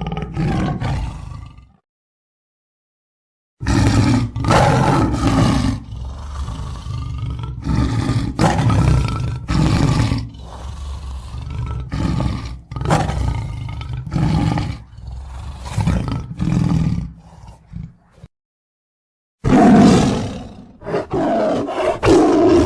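Lion roaring, in three separate takes cut together with dead silence between: a short roar, then a long bout of deep roars and grunts repeating about once a second and slowly fading, then another loud roar near the end.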